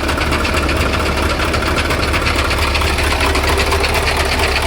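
KAMAZ 740 V8 diesel truck engine idling with a steady, fast clatter while its air compressor pumps up the brake air system.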